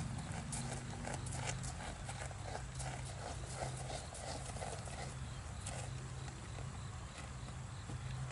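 Unshod hooves of a Belgian draft horse walking on a gravel driveway, an uneven run of crunching hoofbeats that grow fainter after about halfway as the horse moves off. A steady low hum runs underneath.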